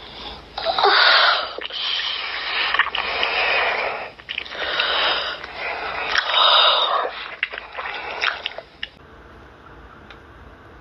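Wet slurping and licking mouth sounds with breathy sniffs, coming in loud bursts with sharp wet clicks. They cut off abruptly about nine seconds in, leaving a quieter steady hiss.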